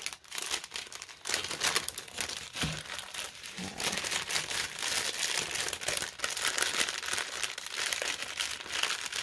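Clear plastic packaging crinkling and rustling as it is handled, a continuous run of fine crackles.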